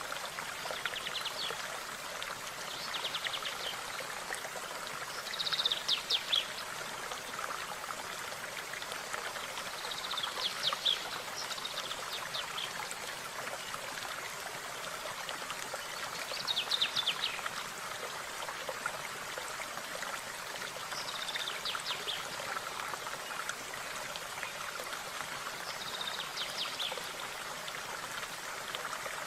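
A stream running steadily, with a songbird repeating short, fast trilled phrases every few seconds above it.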